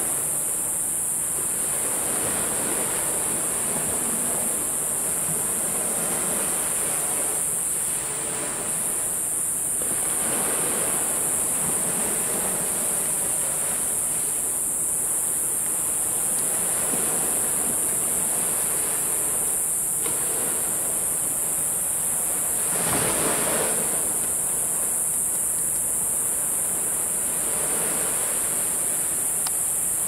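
Sea waves about a metre high washing onto the shore of the Genkai Sea, swelling and falling in soft surges every few seconds, with one louder wash about three-quarters of the way through. A steady high-pitched hiss runs over it.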